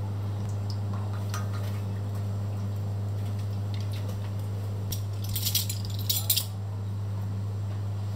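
Kitchenware being handled: a short run of light clinks and rattles about five to six and a half seconds in, over a steady low hum.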